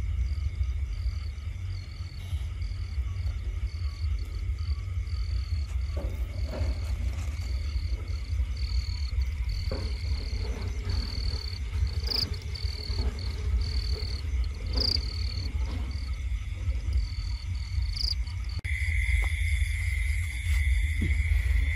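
Night insects calling: a short high chirp repeating about once a second over a steady high drone, with a constant low rumble underneath. Near the end the drone becomes louder.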